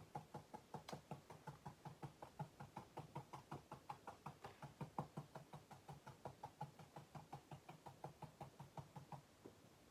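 Crayon tapping and stroking on paper in quick, short strokes: a faint, rapid ticking of about six strokes a second that stops near the end.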